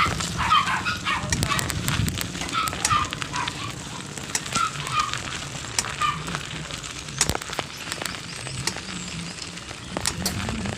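Rain pattering and crackling with many irregular sharp ticks, and a few short high yips now and then.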